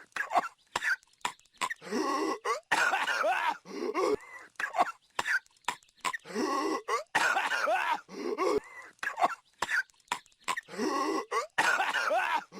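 Cartoon character's hacking coughs, one harsh cough after another in quick clusters, with a similar long fit coming back about every four to five seconds as the clip loops.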